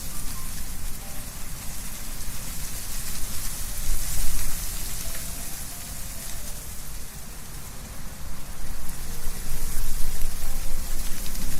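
Wind blowing through trees with leaves rustling, a steady hiss over a low rumble that swells and eases in gusts, easing about halfway through and building again near the end.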